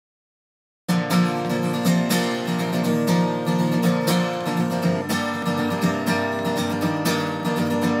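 Background music led by acoustic guitar, plucked and strummed, starting about a second in after silence.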